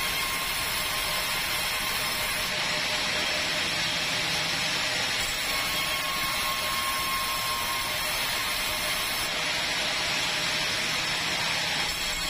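Sawmill saw running with a steady whine while a long wooden board is fed through it and ripped. The cutting hiss swells and eases as the board moves through the blade.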